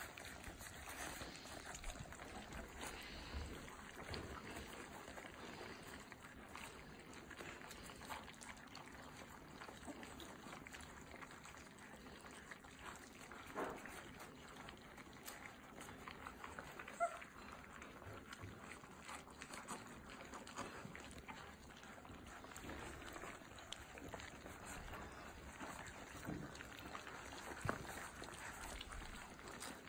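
Old English Mastiff puppies eating together from a shared dish: faint, continuous lapping and smacking of wet food, with small clicks and a few louder ticks.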